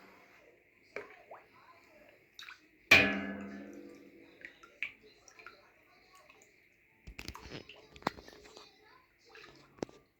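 Kitchen work with metal cookware: a pot is knocked once, sharply, about three seconds in and rings briefly as it fades. Smaller knocks and clicks follow, with a cluster of clatter later on, amid faint liquid sloshing.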